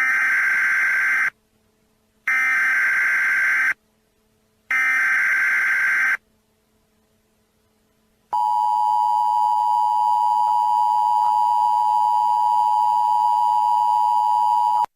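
Emergency Alert System alert: three screeching digital data bursts (the SAME header), each about a second and a half long with short silent gaps, then after a pause a steady two-tone attention signal that sounds for about six and a half seconds and cuts off suddenly.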